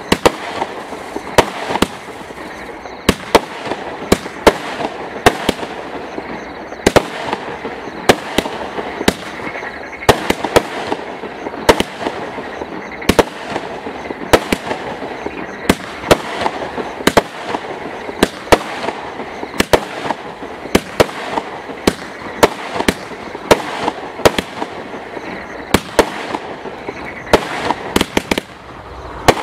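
Total FX 'Celestial Magic' firework cake firing a continuous barrage: sharp bangs of shots launching and bursting, roughly one or two a second at uneven spacing, over a steady hiss.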